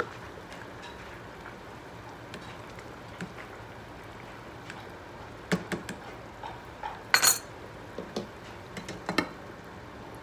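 Metal ladle stirring vegetables in a stainless steel saucepan, with light clinks against the pan. Past the middle come a few louder metal clanks, the loudest about seven seconds in, as the ladle is knocked on the pan and the lid is set on.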